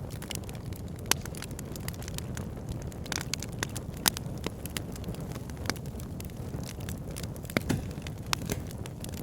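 Wood fire burning in a fireplace: a steady low roar from the flames, with frequent sharp crackles and pops from the burning logs, the loudest about one second and four seconds in.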